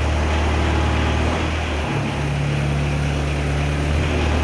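Kubota turbo diesel engine of a Navigator RT5500 truck-mounted forklift running steadily while its hydraulics work the mast up and down; the note changes briefly about two seconds in, with a higher tone joining the hum.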